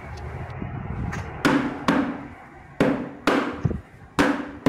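A round metal cake tin full of sponge cake batter lifted and knocked down on the counter, about five sharp knocks in pairs, each with a short metallic ring. The tapping settles the freshly poured batter before baking.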